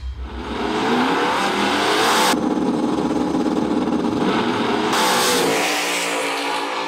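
Turbocharged V8 of a 2014 Ford Cobra Jet drag car accelerating hard, its pitch climbing in three pulls with sudden breaks about two and a half and five seconds in.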